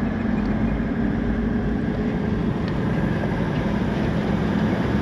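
Steady engine and road rumble inside the cabin of a Toyota LandCruiser Troopcarrier on the move.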